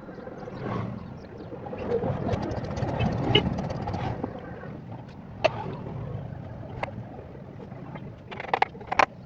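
Bajaj Pulsar 150's single-cylinder engine running unevenly, with several sharp clicks about five and a half seconds in and near the end.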